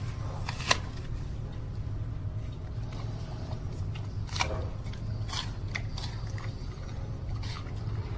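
An animal eating: a few sharp crunches and clicks of chewing over a steady low hum.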